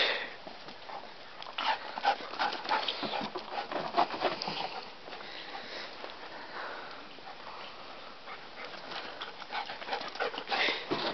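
A dog moving about in shallow snow: irregular light crunches and scuffs from its paws, with occasional sniffing.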